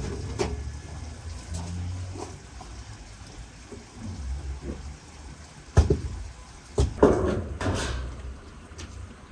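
Bricks being lifted off corrugated roofing sheets and handled, with two sharp knocks about six and seven seconds in, then a short scrape.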